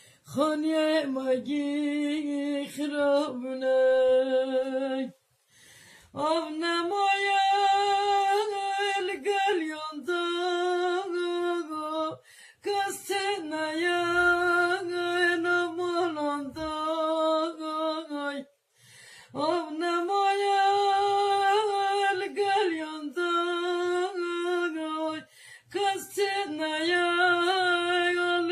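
A Kurdish ağıt (lament) sung by a solo voice: long, wavering held lines with ornamented turns, broken by short pauses for breath about every six seconds.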